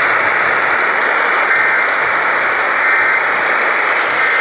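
Loud, steady radio static hiss, with three faint short data bursts about 1.3 seconds apart: the two-tone EAS end-of-message (SAME) bursts that close a Required Monthly Test.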